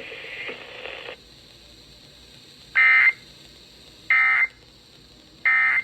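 Three short, identical Emergency Alert System (SAME) digital data bursts, the buzzy tones that relay an alert to other stations, spaced about a second and a half apart. Each burst lasts under half a second, short enough to be the end-of-message code.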